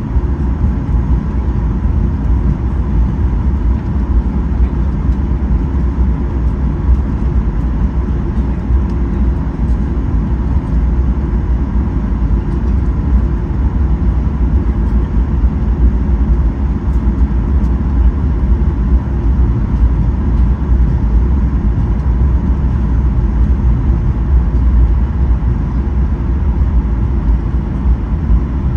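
Cabin noise inside a Boeing 737-800: a steady, loud low rumble of its CFM56 turbofan engines and airflow, with a faint steady whine above it.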